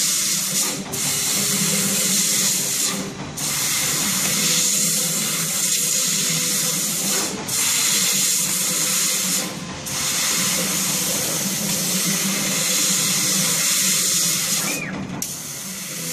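Steady hiss of a 260 W CO2 laser cutter's cutting head as it cuts thin steel sheet, breaking off briefly about five times, with a steady low hum underneath.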